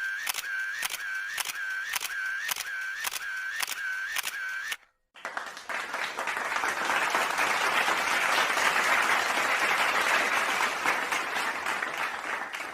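Camera shutter clicking in a rapid series, about two clicks a second, with a high whine that dips and rises between clicks; it stops abruptly. After a brief gap, a crowd applauds and cheers.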